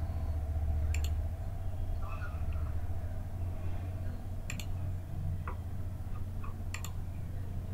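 Three sharp computer mouse clicks, roughly two seconds apart, over a steady low hum.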